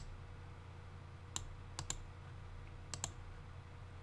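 Sharp clicks from working a computer mouse and keyboard: a single click, then two quick pairs, over a low steady hum.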